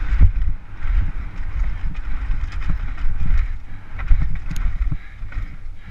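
Downhill mountain bike ridden fast over a rough, dry dirt trail, recorded on a helmet camera: heavy wind rumble on the microphone mixed with a steady stream of knocks and rattles as the bike hits roots and rocks.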